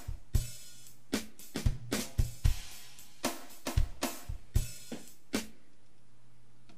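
Drum kit sounds from a Roland XV-2020 sound module: a loose pattern of kick, snare, hi-hat and cymbal hits that stops about five and a half seconds in, leaving a low steady hum.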